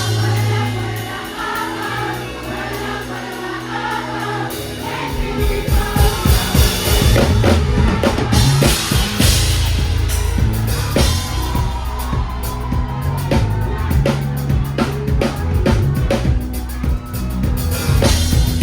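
Gospel music with voices singing together over held bass notes; about five seconds in, a drum kit and driving bass come in and a steady beat carries on.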